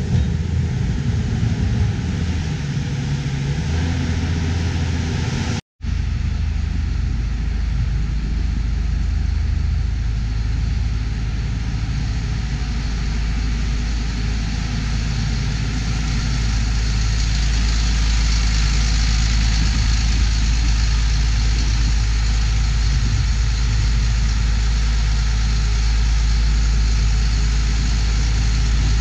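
Diesel engines of farm machinery. For the first few seconds a New Holland skid steer loader's engine works with a varying pitch. After a sudden cut, a tractor pulling a New Holland 195 manure spreader runs with a steady, deep drone that grows louder in the second half as a John Deere 4650 comes close.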